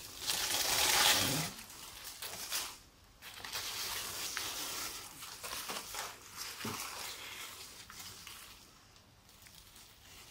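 Dry shed skin of a boa constrictor rustling and crinkling as it is lifted and handled, loudest in the first second or so, then softer and uneven.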